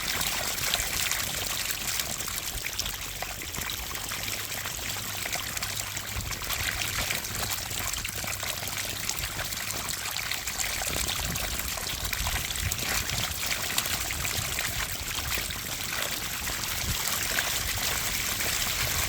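A mass of fish jumping and splashing at the water surface: a dense, unbroken run of small splashes at a steady level.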